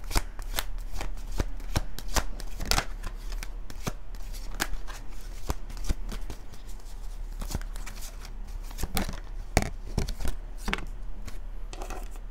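A tarot deck being shuffled by hand: a continuous run of irregular, sharp card clicks and slaps.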